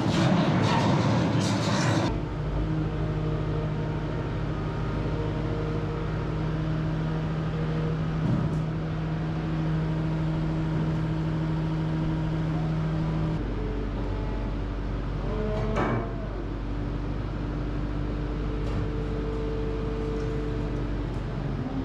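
Skid steer loader engine running steadily at a low idle hum. It is louder and rougher for the first two seconds while the machine is still moving, and its tone shifts slightly later on.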